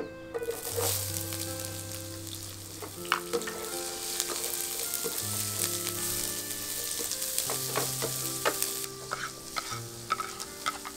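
Chopped onions sizzling loudly as they drop into a hot nonstick frying pan about half a second in, and they keep sizzling as they are stirred. Near the end the sizzle eases and a wooden spatula clicks against the pan.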